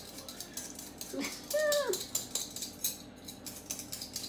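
Vegetable peeler scraping potato skin in quick repeated strokes at the sink. A dog gives one short whine with a rising-then-falling pitch about a second and a half in, the loudest sound here.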